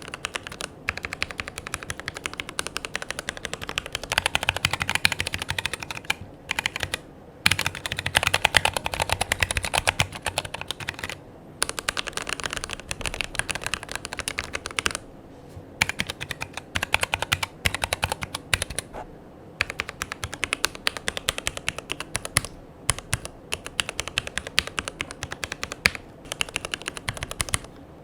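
Mechanical keyboard being typed on: fast runs of key clicks broken by short pauses every few seconds.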